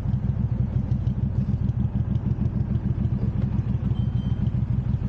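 Benda BD300-15 motorcycle engine idling steadily with the bike at a standstill, a fast, even low pulse.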